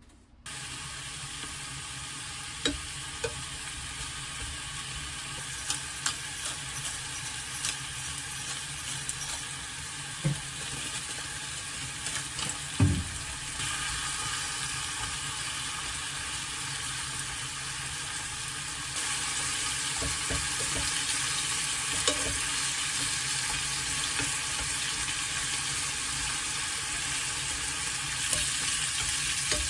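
Thin slices of frozen pork belly sizzling in a frying pan, with a few sharp clicks of wooden chopsticks against the pan as the slices are moved. The sizzle starts about half a second in and grows louder as the pan heats.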